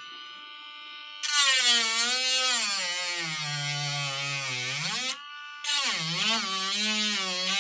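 Cordless three-speed mini rotary tool grinding into a circuit board's copper pad around a screw hole: a loud motor whine with scraping. It starts about a second in, its pitch sags as the bit bites and then recovers. It stops for about half a second after about five seconds and starts grinding again.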